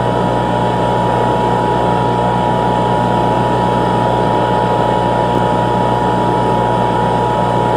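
Emergency Alert System attention tone: a steady high beep held for several seconds over loud hiss and a low hum, cutting off near the end.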